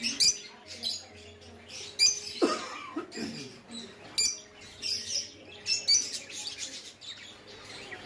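Pet parrots in a breeding aviary (lovebirds, budgerigars and cockatiels) chirping and calling, many short high chirps from several birds at once.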